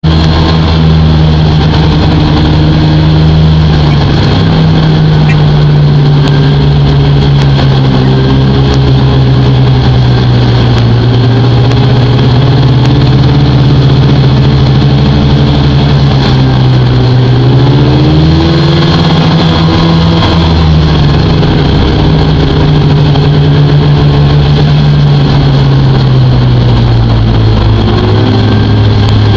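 Snowmobile engine running at trail speed close to the microphone, its pitch falling about four seconds in, climbing again a little past halfway, then easing back down as the rider changes speed, over a steady rushing noise.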